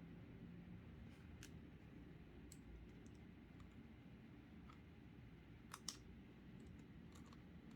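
Faint clicks of a precision Pentalobe screwdriver working the bottom screws of an iPhone 6s: a few scattered light ticks, with a sharper double click late on, over a low steady room hum.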